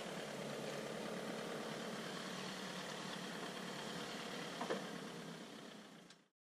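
Safari vehicle's engine idling steadily, with a faint click about four and a half seconds in; the sound fades out near the end.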